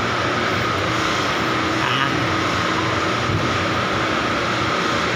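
Steady machinery drone: a low hum under a constant high-pitched whine, running evenly without a break.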